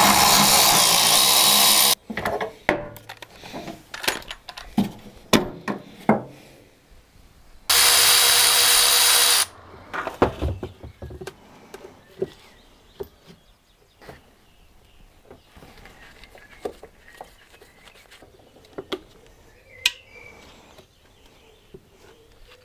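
Power drill running in two short bursts of about two seconds each, several seconds apart, with scattered small clicks and knocks of tools and parts being handled between and after them.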